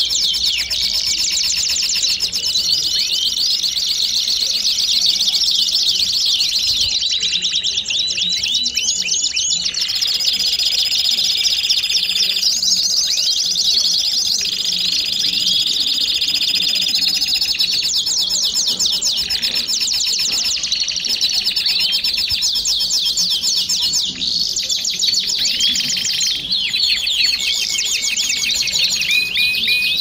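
Belgian canary singing a continuous song of fast trills and rapidly repeated chirps. Near the middle it holds one long steady whistled note for several seconds before going back to trilling.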